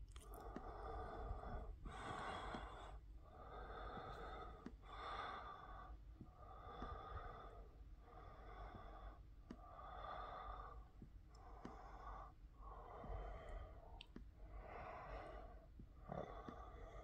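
Faint, even breathing close to the microphone, about ten breaths each lasting about a second, with a few small clicks in between.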